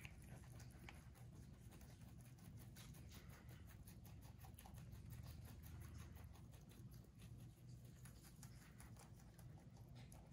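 Two rabbits chewing dandelion greens and stems: faint, rapid crisp crunching clicks, many per second, over a low room hum.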